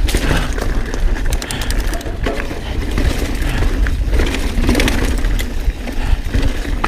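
Mountain bike riding fast down a rough, rutted dirt trail: a steady rumble of wind and ground noise on the camera microphone, with tyres crunching over dirt and rock and the bike rattling. A quick run of sharp clicks comes about one and a half seconds in.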